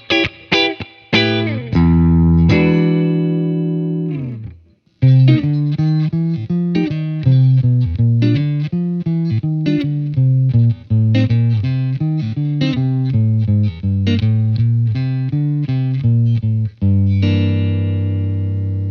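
Clean electric guitar through a valve amp. A Les Paul chord on its middle pickup rings out and fades, and after a short break a Fender Stratocaster on its neck pickup plays a quick run of clean picked notes, ending on a sustained chord.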